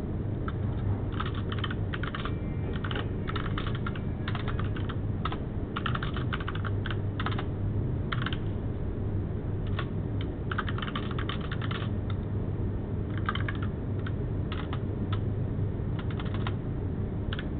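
Typing on a computer keyboard in irregular bursts of quick keystrokes with short pauses between, over a steady low hum.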